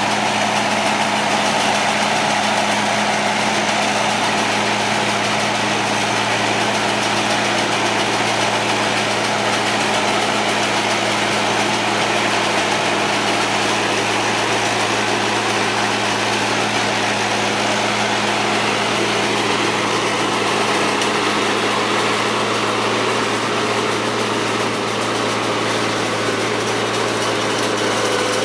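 Avant 635 compact loader's diesel engine running steadily at constant speed.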